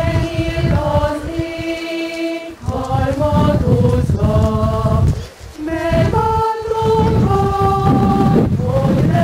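Choir singing, with notes held about a second each and a short break about five seconds in.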